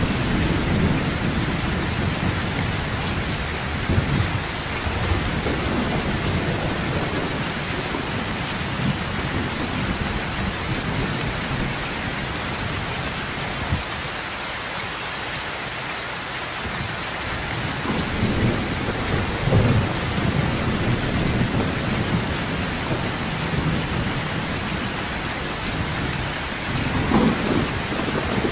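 Heavy rain falling steadily on a metal roof, with low rolls of thunder at the start, again about two-thirds of the way in, and near the end.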